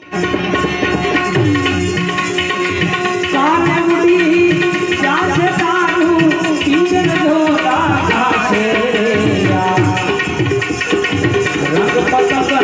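Instrumental opening of a Gujarati desi bhajan: harmonium playing the melody over a steady drum beat.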